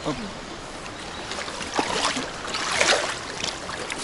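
Shallow river current running steadily, with a run of splashing and sloshing in the water between about one and a half and three and a half seconds in.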